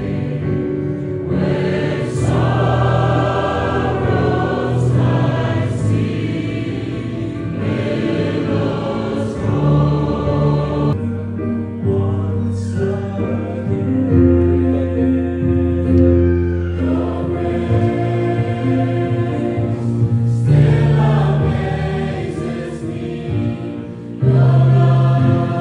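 Choir of school students singing a gospel song in held, changing chords.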